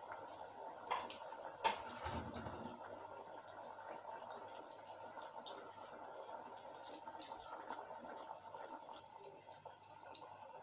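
Batter-coated chicken pieces deep-frying in hot oil in a stainless steel pot: a steady faint sizzle with scattered fine crackles. Two sharp clicks come about a second and a second and a half in.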